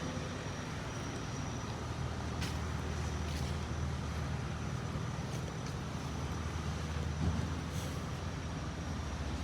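An engine running steadily, a constant low hum with a thin high whine over it and a few faint clicks.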